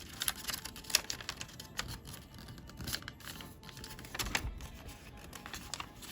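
A sheet of colored origami paper being handled and folded, giving irregular crisp crackles and taps as the creases are pressed in.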